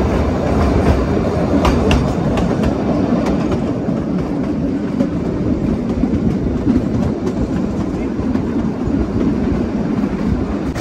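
Kalka–Shimla narrow-gauge toy train running along the track: a steady rumble of the moving train, with wheels clicking over rail joints.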